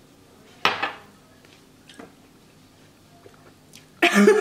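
A person reacting to a straight tequila shot: a short harsh burst of breath about half a second in, then near the end a loud, drawn-out groan of disgust as the shot burns.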